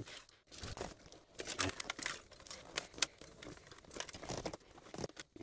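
Irregular rustling and crinkling with scattered light clicks and knocks, one sharper knock about three seconds in: speaker wire and car carpet being handled as the wire is routed under the carpet and seats.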